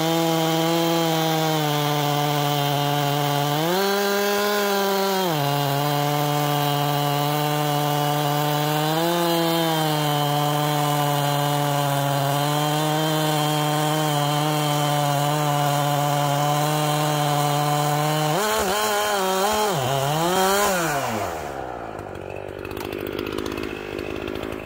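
Chainsaw mounted in a chainsaw mill, running at a steady high speed while ripping a log lengthwise, its pitch rising briefly twice. Near the end the pitch wavers up and down as the cut finishes, then the saw drops to a lower, quieter idle.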